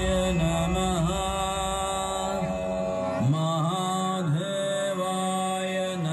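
A chanted mantra: a voice sings long bending notes over a steady drone. A low rumble underneath stops about three seconds in.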